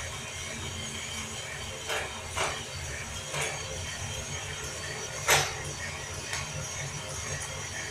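Prototype coffee roaster running: its motor hums steadily while the beans rattle and tumble in the rotating drum. A few sharp clicks stand out about a second apart, the loudest about five seconds in.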